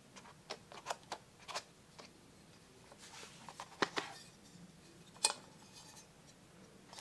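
Small clicks and taps of a brake master cylinder cap, a metal lid with a rubber diaphragm seal, being handled and turned over in the hands. The two sharpest clicks come about four and five seconds in.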